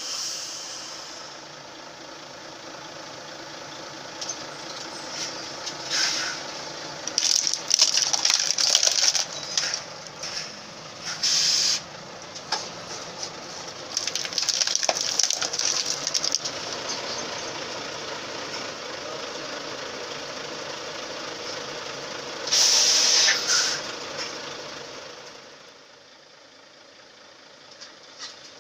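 Truck's diesel engine running as a heavy wheel rolls slowly over laptops and a mobile phone, their plastic and glass cracking and crunching in clusters from about 6 to 16 seconds in. Loud bursts of hissing come in between, the loudest about 22 seconds in, and the engine noise drops near the end.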